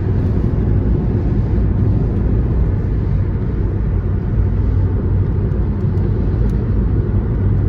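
Steady low rumble of road and tyre noise inside a Toyota Aqua hybrid's cabin at motorway speed on a rain-soaked road, with rain hitting the windscreen.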